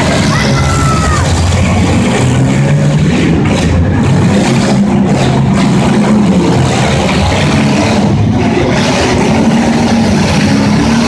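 Demolition derby cars' engines running hard and revving, several at once, their pitch rising and falling.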